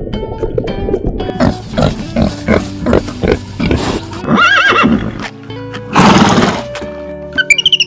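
Background music with animal calls over it, among them a horse neighing.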